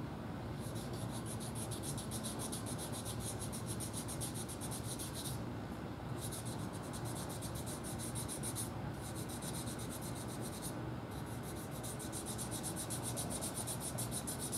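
Small hand sanding block with 600-grit paper wet-sanding a clear-coat paint run on a painted motorcycle tank: quick back-and-forth scratchy strokes in four runs with short pauses between, levelling the sag in the clear coat.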